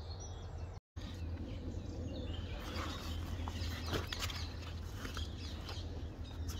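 Faint birds chirping over a low steady rumble, with a few light rustles and clicks as someone crouches in long grass.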